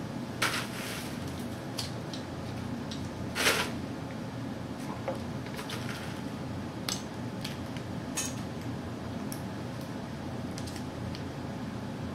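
Scattered light clinks and clatters of small lab items, forceps and a metal specimen tube, being picked up and handled, and a rustle of crushed ice in a bucket, over a steady background hum. The two loudest knocks come about half a second and three and a half seconds in.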